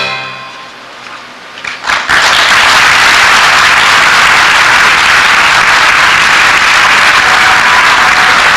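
The last chord of the musical accompaniment dies away, and about two seconds in an audience starts applauding, steady and sustained.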